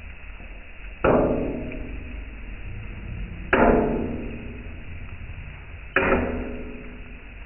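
Metal kothu blades striking an iron griddle three times, about two and a half seconds apart, each clang ringing on before fading.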